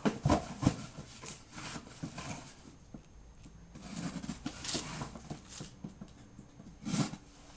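Cardboard boxes being handled and cut with a folding knife: irregular rustles, scrapes and light knocks, with a louder scrape near the end.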